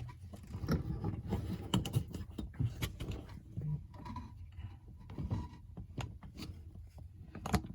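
Scattered light clicks and taps at an irregular pace, from hands handling a phone.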